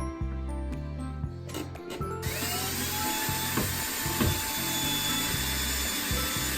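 Electric drill spinning up about two seconds in and then running with a steady high whine, over background music.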